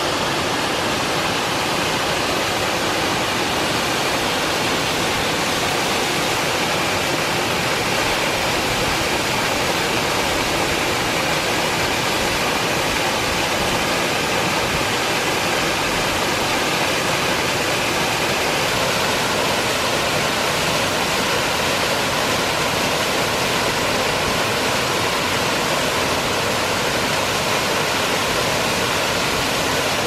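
A waterfall's steady rush of water pouring over rock and splashing into a pool.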